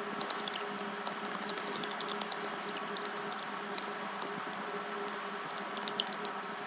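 ASMR mouth sounds: many small irregular clicks from a child's mouth held right at the microphone, over a steady low hum.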